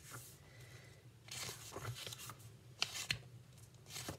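Paper rustling as a hardcover picture book is handled and its pages turned, with a few light knocks near the end.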